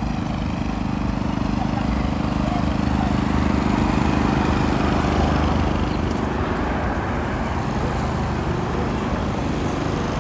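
City street traffic: a vehicle engine running close by with a steady low drone for the first several seconds, loudest about four seconds in, over continuous road noise.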